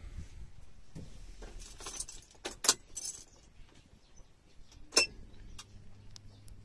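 A bunch of car keys jingling and clinking against each other as the ignition key is turned, with the sharpest clinks about two and a half and five seconds in. A faint steady low hum comes on after the second clink.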